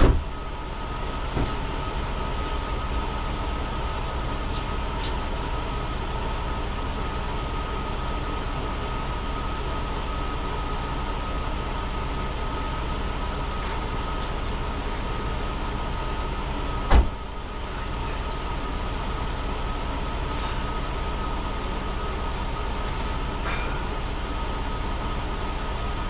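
A truck's engine idling steadily, running again after a new starter was fitted. A sharp knock comes right at the start and another about seventeen seconds in.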